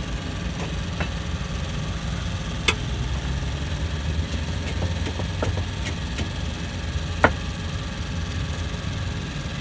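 Steady low rumble of a running engine, with a few short sharp clicks over it, the clearest about three seconds in and again about seven seconds in.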